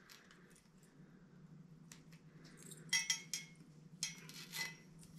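Faint handling noise of a bungee clamp's Velcro strap and clamp being fitted around a metal backdrop stand pole: short clicks and crackles in a few clusters, the loudest about three seconds in and again around four seconds, over a low steady hum.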